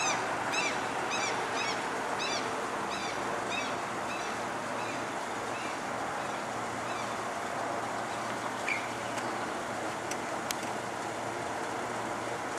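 Street traffic with a procession of vintage cars driving past, a steady rush of engine and tyre noise. Over the first half, short high chirps repeat about every 0.6 s and fade out. Two sharp clicks come near the end.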